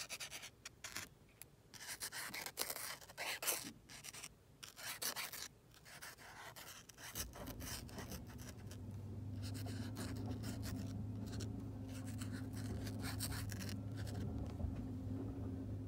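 Paint marker drawing on paper: irregular scratchy strokes of the tip across the page. About seven seconds in, a steady low hum starts and carries on under the quieter strokes.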